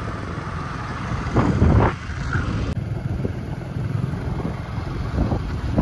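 Motorcycle running along the road with wind buffeting the microphone, and a louder rush of noise about a second and a half in.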